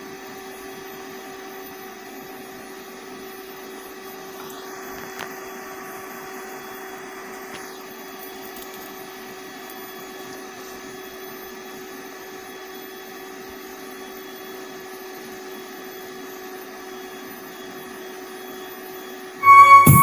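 Steady whir of a small cooling fan inside an open homemade power amplifier, with a few faint steady tones above it. Near the end, loud langgam music played through the amplifier under test cuts in suddenly.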